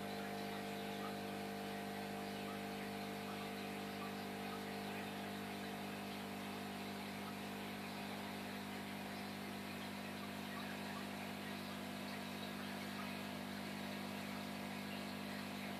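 Aquarium air pump and filter humming steadily, with an even hiss of bubbles rising from the air curtain.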